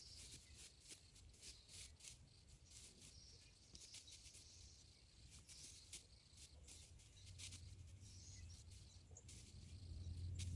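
Near silence: faint outdoor background with scattered short, high clicks and chirps, and a low hum that grows slightly louder near the end.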